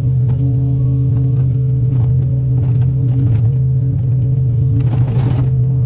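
Excavator's diesel engine running steadily under load, with a burst of crackling and scraping about five seconds in.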